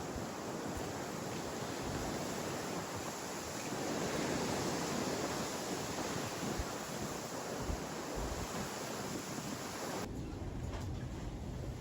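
Steady rushing noise of wind and water, swelling about four seconds in, then dropping to a quieter background near the end.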